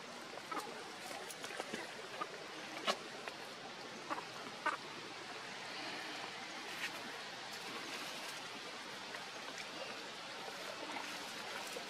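Steady outdoor background hiss, with scattered faint clicks and a couple of short squeaks about four to five seconds in.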